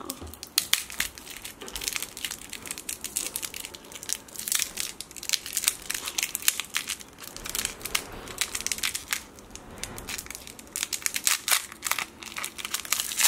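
A lollipop wrapper crinkling as it is twisted and peeled off the candy by hand, in a dense run of quick, irregular crackles.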